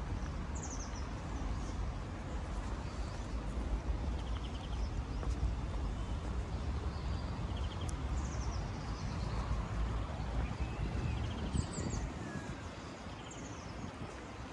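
Outdoor ambience: a steady low rumble with small birds chirping above it, short high notes that fall in pitch and come every couple of seconds.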